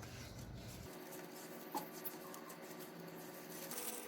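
Faint handling noises, light rubbing and a soft click, as the dough is set away in the refrigerator.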